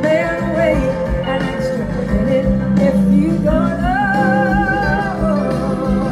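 Live band music: a woman sings lead over guitar, with a steady held low note underneath and no break.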